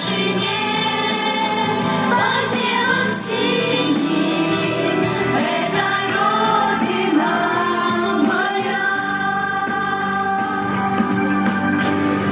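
A song: singing over a steady instrumental backing.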